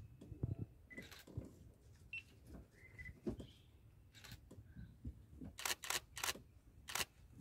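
Camera shutters clicking now and then, with a quick run of clicks a little before the end. A few faint short high chirps sound early on.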